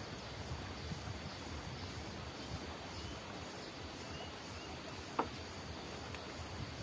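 Outdoor rural ambience: low wind noise on the microphone, with faint bird chirps and a thin steady insect tone. One short, sharp sound stands out about five seconds in.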